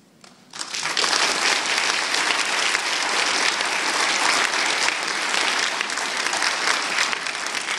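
Audience applauding: dense clapping breaks out about half a second in and carries on steadily, easing slightly near the end.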